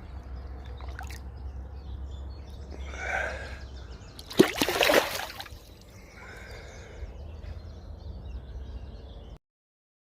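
Water sloshing, with one loud sudden splash about four and a half seconds in, likely a caught pike going back into the lake. The sound cuts off abruptly near the end.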